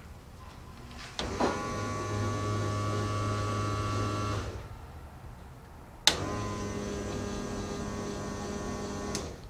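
A small electric motor runs steadily twice, about three seconds each time, each run starting with a sharp click.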